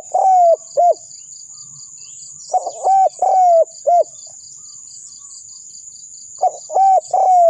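Spotted dove cooing close by: three phrases of four or five mellow coos, the middle notes drawn out, repeating about every three seconds. Behind them cicadas or crickets make a steady high drone with fast pulsed chirps.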